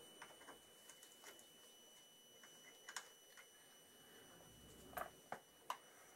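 Faint scattered clicks and light knocks of a motorcycle radiator being handled and offered up against the frame, with a few sharper knocks about five seconds in.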